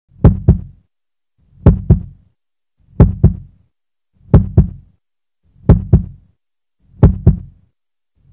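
Heartbeat sound effect: a deep double thump (lub-dub) repeating slowly, about every second and a third, six beats in all.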